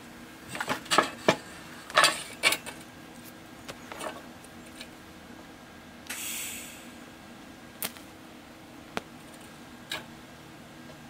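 Steel plates and a G-clamp being handled on a workbench, with several clanks and knocks in the first few seconds. About six seconds in comes a short hiss of shielding gas from a TIG welding torch, followed by a few sharp single clicks about a second apart.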